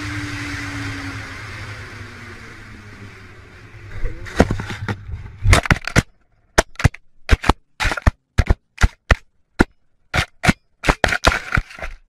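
Vehicle running noise with an engine note slowly falling in pitch. Then, about four seconds in, a cluster of sharp bangs, followed by a string of short, separate bangs and clicks with dead silence between them.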